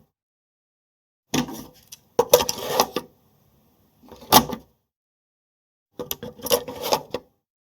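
Plastic cassette being handled, giving clicks and clatters in four short bursts with silence between them.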